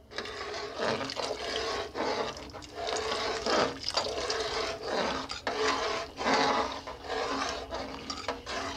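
Metal ladle stirring soup in a metal pot, scraping against the pot in repeated strokes a little more than once a second while cornflour slurry is stirred in to thicken the soup.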